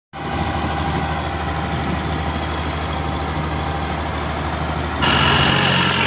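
Combine harvester's diesel engine running steadily while its unloading auger pours wheat grain into a trolley. About five seconds in, a tractor's engine takes over, louder and at a different pitch.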